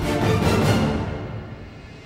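Background theme music, fading out from about a second in.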